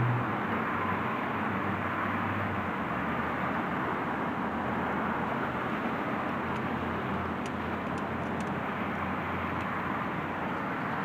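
Steady outdoor background noise with a faint low hum, and a few small clicks about two-thirds of the way through.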